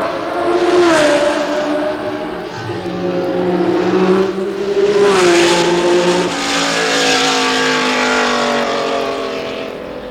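Several 1960s Formula One race cars passing at speed one after another. Their engine notes drop in pitch as they shift down and brake, with loud passes about a second in and again around the middle, then fade away near the end.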